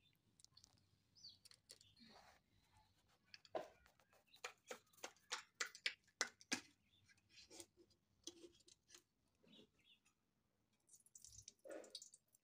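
Near silence broken by faint, scattered sharp clicks and ticks, with a dense run of them between about four and seven seconds in and a brief hiss just before the end.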